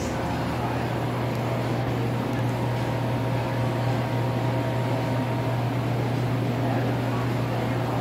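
Steady low mechanical hum with a few fainter steady tones above it, as from indoor building machinery such as ventilation or refrigeration.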